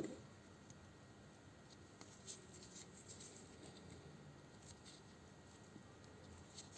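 Near silence with faint, scattered light clicks and taps of small parts being handled, with one slightly louder click at the very start.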